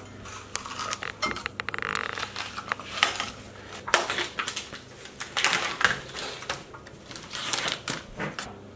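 Clinking and knocking of a kitchen knife and utensils against metal baking trays and a glass tabletop as a green pepper is sliced and a pizza is topped, with a quick run of light ticks between one and two seconds in.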